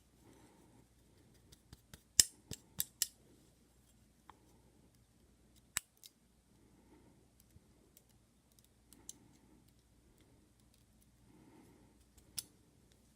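Sharp metallic clicks and taps of small lock parts and tools being handled while a Kwikset deadbolt cylinder is taken apart: a quick run of four about two seconds in, then single clicks near the middle and near the end.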